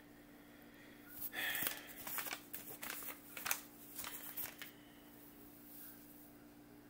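A burst of rustling with sharp clicks lasting about three and a half seconds, over a faint steady hum.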